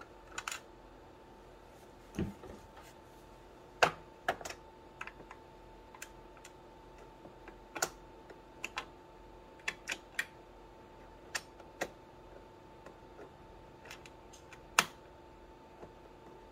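Scattered small clicks and taps of fingers handling the plastic roller bracket and its screw and metal backing piece inside an Epson XP-15000 printer, the sharpest about four seconds in and near the end. A faint steady hum sits underneath.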